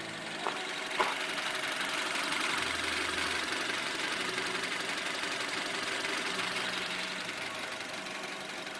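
VW CWVA 1.6 four-cylinder petrol engine running with an unpleasant noise and whistle, which the owner noticed as abnormal before its service. A steady hiss and whir, a little louder through the middle, with a small click about a second in.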